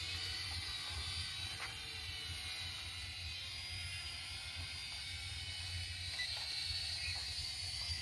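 Remote-control quadcopter drone flying, its propellers giving a steady high-pitched whine, with wind rumbling on the microphone.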